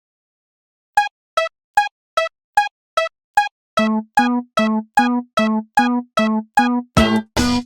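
Electronic railroad crossing alarm bell striking about two and a half times a second, alternating between two pitches. It starts after a second of silence. About halfway through, a lower tone joins each strike, and near the end it becomes louder and fuller, like a musical arrangement built on the bell.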